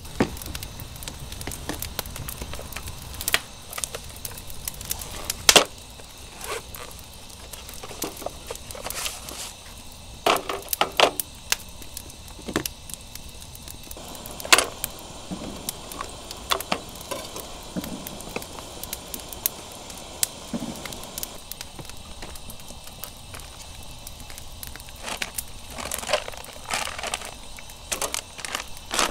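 Wood fire crackling in a hexagonal metal fire pit, with scattered sharp pops over a steady hiss. A few clusters of knocks and clatter, about ten seconds in and again near the end, come from camp gear being handled.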